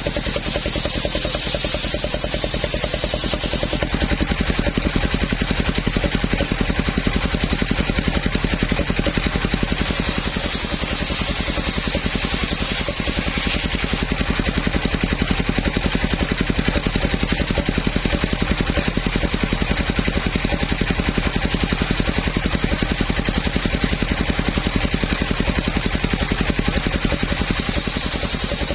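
Engine of a home-built circular-saw sawmill running steadily, with a fast even pulse. A hiss in the highs drops away about four seconds in and returns for a few seconds around the ten-second mark and again near the end.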